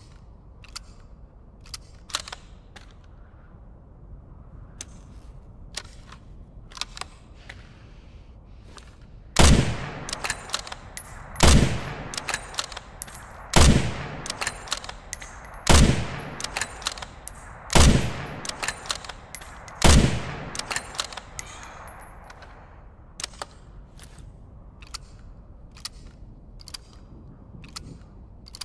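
Winchester Model 70 bolt-action rifle firing six shots, evenly spaced about two seconds apart in the middle of the stretch, each with an echoing tail. Lighter sharp clicks come before and after the shots.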